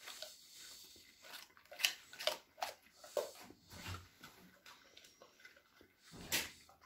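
A large dog chewing a hand-fed piece of food, with a run of short wet crunches and jaw clicks, and a louder burst of noise about six seconds in.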